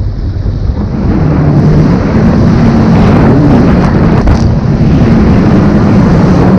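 Kawasaki jet ski running at speed, a steady engine hum wavering slightly in pitch, with heavy wind buffeting the microphone.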